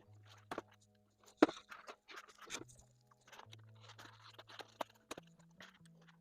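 Background music with a slow bass line stepping between low notes, over handling noises of clicks and short rustles; a single sharp knock about one and a half seconds in is the loudest sound.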